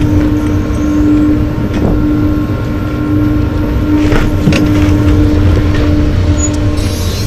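Wind buffeting the microphone over the scrape of sliding downhill on snow, a steady rumbling noise with a low hum underneath and a few short scrapes.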